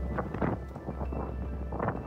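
Background music, with a low steady rumble of wind on the microphone underneath.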